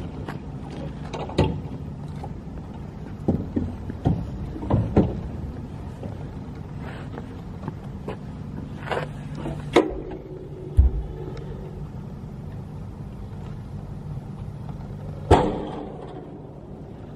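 The pressure washer fitted to a Goupil G3 electric utility vehicle runs with a steady low hum, with scattered knocks and clicks. After a loud knock near the end, the hum dies away.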